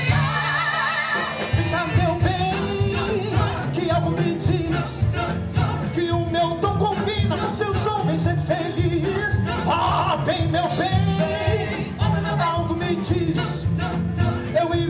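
Live band playing the song, with electric guitar, upright bass and drums keeping a steady beat, and voices singing over it without clear words.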